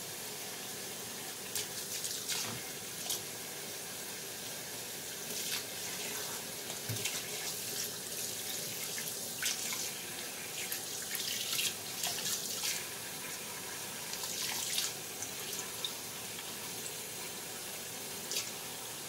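Kitchen faucet running steadily over a rack of pork spare ribs in a stainless steel sink, the stream breaking on the meat. Short louder splashes come now and then as gloved hands turn and work the ribs under the water.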